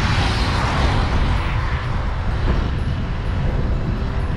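A car passing the cyclists, its tyre and engine noise swelling in the first second and fading away over the next, over steady wind buffeting on the microphone from riding into a headwind.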